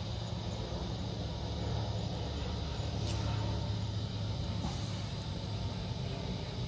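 Jazzy 1103 Ultra power-wheelchair drive motor running steadily on direct battery power, spinning its wheel with an even low hum. This is its test run after rust was cleaned out from between the rotor and stator.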